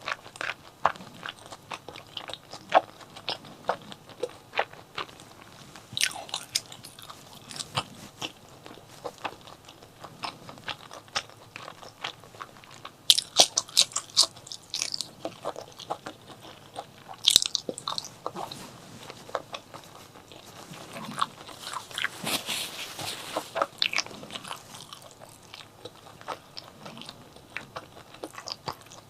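Close-miked mukbang eating of chili with white rice: wet chewing and crisp crunching bites in a steady run, with denser bursts of crunching a little before the middle and past it.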